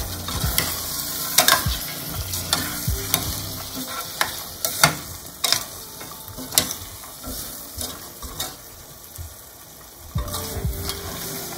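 Metal spoon stirring peas and potatoes through masala in a stainless steel pot, clinking and scraping against the pot's sides at an uneven pace, over a steady sizzle of the frying masala. The stirring eases off for a couple of seconds past the middle, then picks up again near the end.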